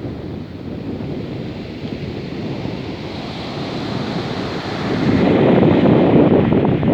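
Sea waves surging and breaking on a pebble shore, with wind buffeting the microphone; the surf noise swells noticeably louder about five seconds in.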